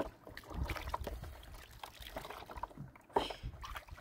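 Water splashing and sloshing in a plastic washing basin as glasses and dishes are washed by hand, with small irregular knocks and clinks.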